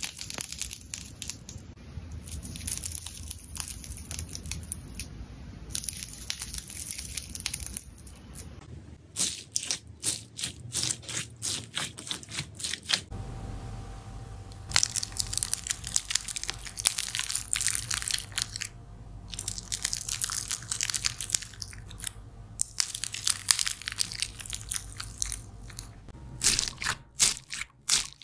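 Slime being squeezed and pressed by hand, giving dense runs of crackling, popping clicks that stop briefly about halfway through and then resume.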